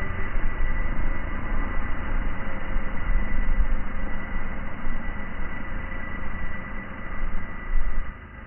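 GT8 drone's motors and propellers running steadily: a continuous hum with a thin high whine over a fluctuating low rumble, which drops off sharply near the end.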